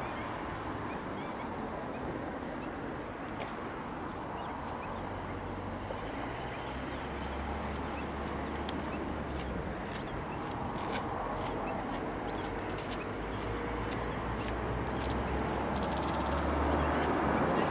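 A flock of flamingos calling continuously with a goose-like honking and gabbling chatter. A low rumble, wind on the microphone, comes in about six seconds in and grows toward the end.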